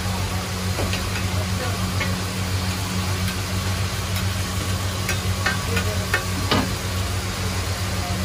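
Burgers frying in butter on a large flat iron griddle, sizzling, while a metal spatula and knife scrape and click against the griddle, with a run of sharp clicks a little past the middle. A steady low hum runs underneath.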